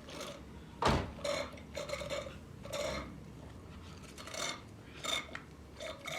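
Small objects handled on a table: a sharp knock about a second in, then a run of short rubbing and clinking noises.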